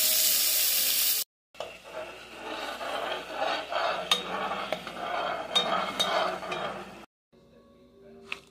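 Chopped onion sizzling loudly in a hot cast iron pot, cut off abruptly after about a second. Then a metal spatula scrapes and stirs broth in the pot for several seconds, with sharp clinks of metal on the iron.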